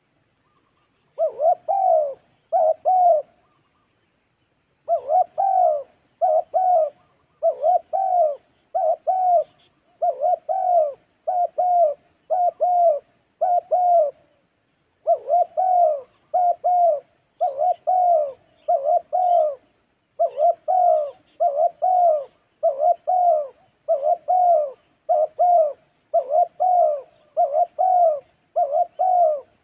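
Spotted dove cooing in a long run of short, repeated coos, a little more than one a second. After the first few there is a pause of about a second and a half, then the cooing keeps on steadily.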